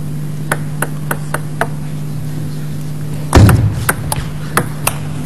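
A table tennis ball is bounced on the table five times before a serve. About three seconds in comes a loud thump, then a short rally of sharp ball clicks off bats and table, over a steady low hum.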